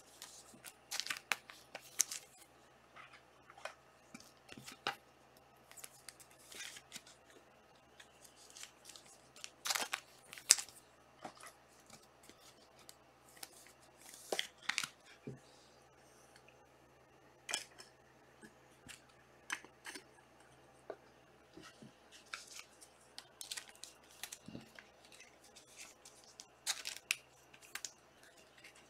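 Trading card packs being torn open and the cards handled: scattered short rustles of foil wrappers, with snaps and taps at irregular intervals.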